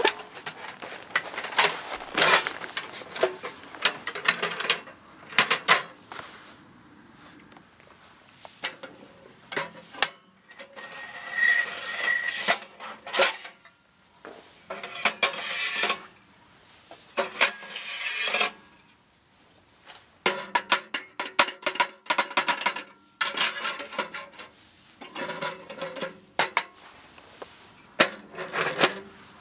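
Stainless steel Winnerwell wood-burning tent stove being assembled: irregular metal clanks, clicks and scrapes as its folding legs are swung out and its flue pipe sections are fitted together, with quieter pauses between bursts of handling.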